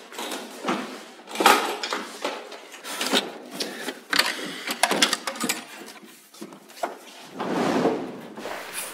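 Drawers and cabinet doors of an ornate wooden dresser being yanked open and shut while things inside are rummaged. There is a string of wooden knocks and clatters, the loudest about a second and a half in, and a longer rustling stretch near the end.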